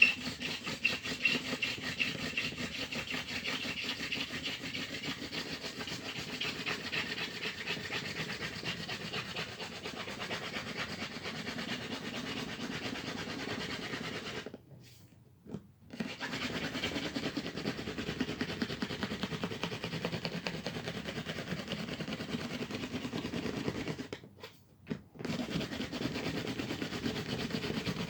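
Hand drill friction fire-lighting: a bamboo spindle spun back and forth between the palms into an ivy hearth board, a continuous dry rasping friction while working toward an ember. It stops briefly twice, about halfway and near the end, then starts again.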